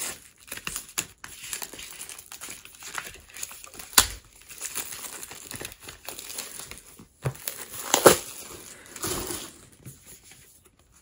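Plastic shrink wrap being pulled and torn off a cardboard box set by hand, crinkling irregularly. Two sharp, louder crackles come about four and eight seconds in, and it grows quieter near the end.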